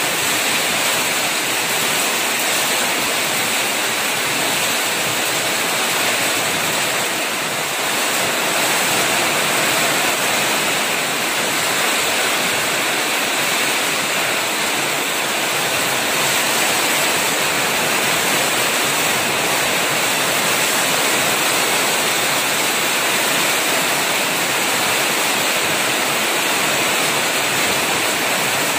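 Heavy rain pouring down on paving and garden plants, a steady, dense hiss with no breaks.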